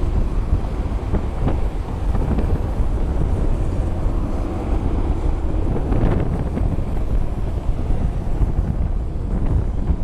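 Strong gusty wind buffeting the microphone: a loud, uneven low rumble.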